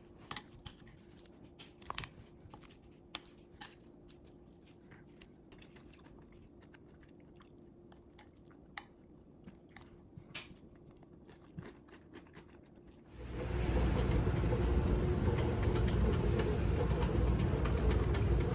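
Wooden spoon stirring a rice-and-salmon poke bowl in a ceramic bowl: soft squishing with scattered light clicks of the spoon against the bowl. About thirteen seconds in, a much louder steady background noise cuts in suddenly.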